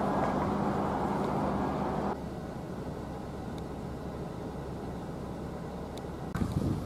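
A steady engine hum over outdoor noise that cuts off abruptly about two seconds in, leaving a quieter outdoor background, with a brief low rumble of wind on the microphone near the end.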